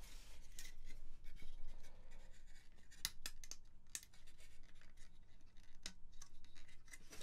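Circuit-board panels and small plastic jumper blocks of a Modal Craftsynth kit being handled and pressed together: rubbing and scraping with scattered sharp clicks, the strongest a few about three to four seconds in and one near six seconds.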